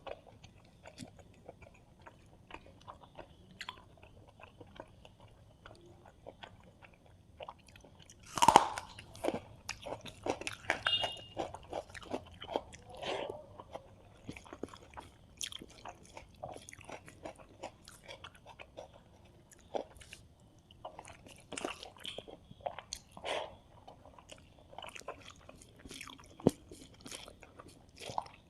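Close-up eating sounds of a person chewing and biting into a meal of rice with fried fish, eggs and curry: many short crunches and wet mouth clicks in irregular runs, with the loudest crunchy bite about eight and a half seconds in.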